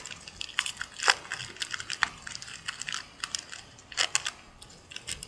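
A trading card pack being opened by hand: irregular crinkling and crackling of the packaging and clicks of the cards being handled, thickest about four seconds in.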